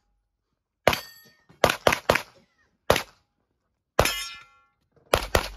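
Handgun shots fired in a practical-shooting stage: eight sharp reports, some in quick runs of two or three, others a second or so apart. Two of the shots, about one second in and about four seconds in, carry a brief metallic ring.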